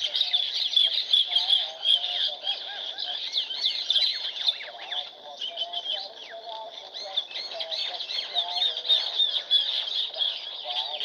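Many small birds chirping and twittering at once in a dense, unbroken chorus, with lower curling calls woven through it.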